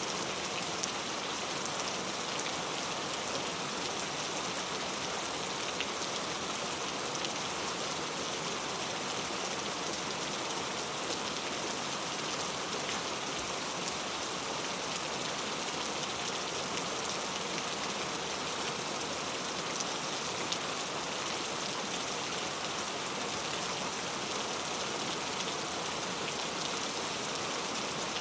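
Steady rain falling into a puddle: an even, unbroken hiss of drops with many small individual drop ticks, and no thunder.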